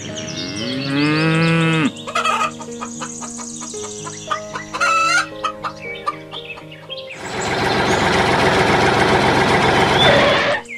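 Background music with a steady repeating melody. A cow moos from about half a second in, a short bird call sounds about five seconds in, and from about seven seconds a loud steady rushing noise runs until just before the end.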